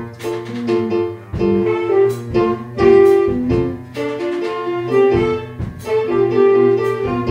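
Instrumental background music: a run of plucked, ringing notes over sustained low tones, with no voices.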